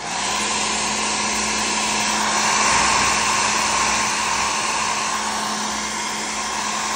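Handheld hair dryer switching on and then running steadily: a rushing blast of air over a constant motor hum, blowing hot air at close range onto a plastic action figure to soften it.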